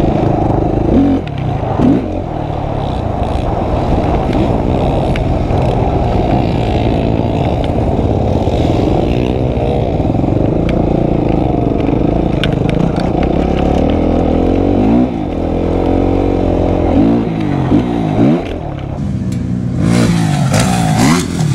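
Motorcycle engine running under a rider, its pitch repeatedly rising and falling as the throttle is opened and closed. A burst of rushing noise comes near the end.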